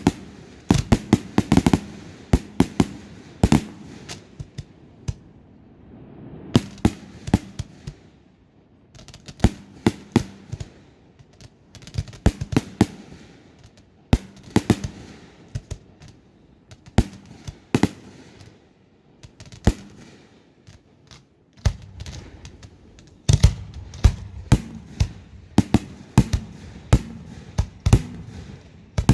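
Fireworks display: aerial shells bursting in irregular clusters of sharp bangs and crackles, thinning out to a short lull about two-thirds of the way in, then dense rapid volleys near the end.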